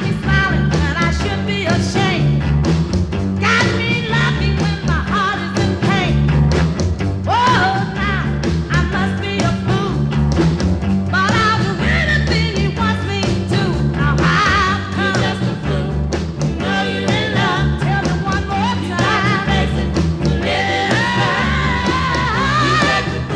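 Rhythm-and-blues song playing: a band with a steady driving beat and a lead line moving above it.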